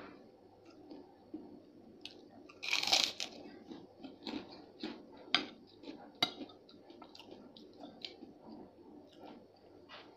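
Close-up crunch as a crispy fried cracker is bitten about two and a half seconds in, followed by crunchy chewing. Sharp clicks come from a metal spoon against a ceramic plate.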